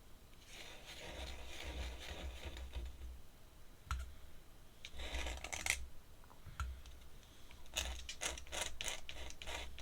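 Ink pen scratching on paper in short strokes, with a few light taps and clicks.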